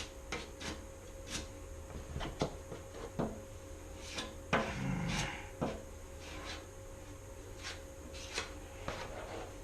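Body filler being spread onto a welded truck body panel with a filler spreader: scattered short scrapes and clicks as the filler, close to setting, is worked on, over a steady low hum.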